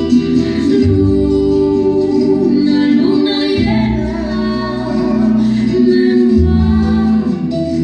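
Song with a woman's voice singing long, wavering notes over held chords and a deep bass.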